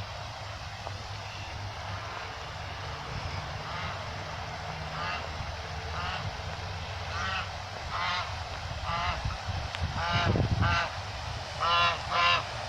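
Geese honking: repeated short calls that start about two seconds in and come faster and louder toward the end, over a steady low background rumble.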